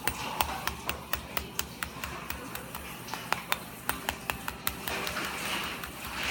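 A quick run of light, sharp taps, about four a second, which stop near the end and give way to a soft rustling hiss.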